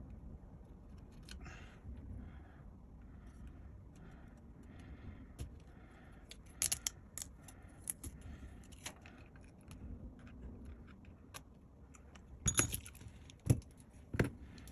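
Small metal tools and tiny screws clicking and tapping against a MacBook Pro's aluminium case as the trackpad screws are taken out, with a few louder knocks near the end.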